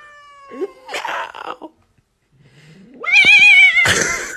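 An angry calico cat crying and hissing: a long, steady cry, a short hiss, then a low rising growl that swells into a loud wavering yowl and ends in a sharp hiss.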